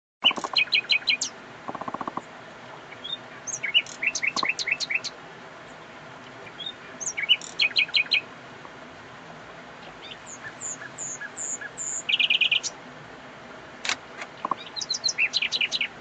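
Common nightingale singing in separate phrases with short pauses. The phrases are fast runs of repeated notes, a low rapid pulsing series about two seconds in, and a few thin high whistles leading into a loud buzzy trill about three quarters of the way through.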